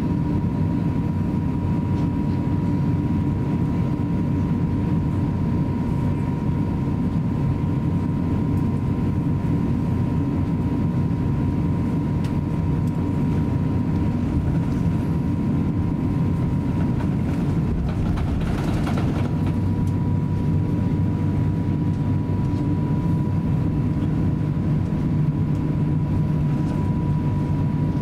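Cabin noise of an Airbus A350-900 taxiing: a steady low rumble from its Rolls-Royce Trent XWB engines at taxi power and the rolling airframe, with a thin steady whine over it. A brief hiss rises and fades about two-thirds of the way through.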